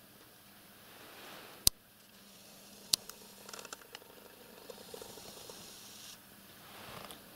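Soft rustling and scuffling of a cat playing with a caught mouse on a carpet, with two sharp clicks about two and three seconds in.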